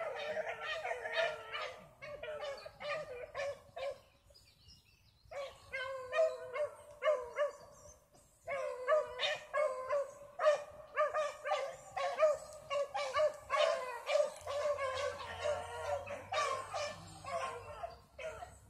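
Dog barking rapidly and repeatedly, several barks a second, with a short break about four seconds in and another about eight seconds in.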